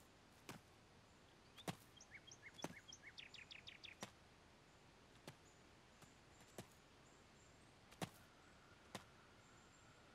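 Quiet outdoor ambience with a small bird twittering in a quick run of chirps for about two seconds, near the start. Faint soft steps on a dirt path come about once a second.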